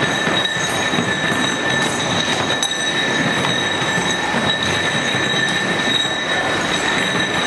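Steady workshop machinery noise with a constant high-pitched whine, and faint clinks of steel bolts and nuts being handled on a workbench.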